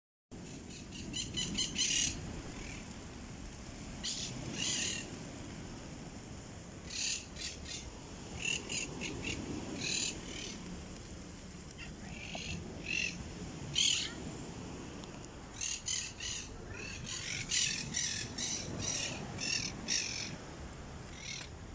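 Parakeets squawking, many short shrill calls repeated in bursts.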